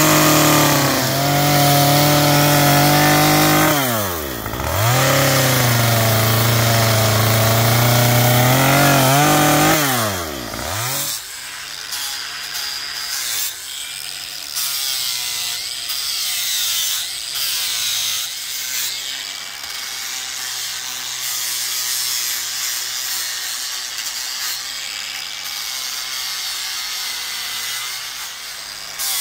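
A Stihl chainsaw runs at high revs in cedar, its engine note dropping and climbing back twice. About eleven seconds in it gives way to a quieter small angle grinder with a sanding disc rubbing over the carved cedar.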